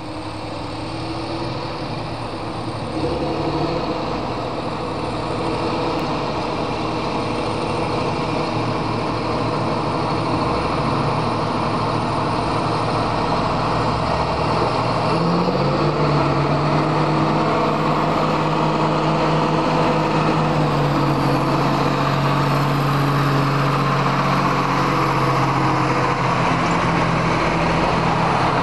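John Deere tractor diesel engine running steadily under load. It grows louder over the first few seconds and rises in pitch about halfway through, then holds.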